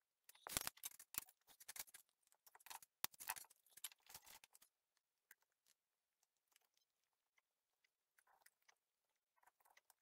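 Faint crackling and small clicks of hand desoldering work on a circuit board, with a soldering iron, solder sucker and solder wick in use. The crackles come thick for the first few seconds, then thin out to a few soft ticks.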